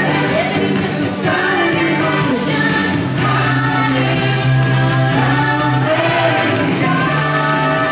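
Pop song with a group of female voices singing over a backing track with a steady bass line.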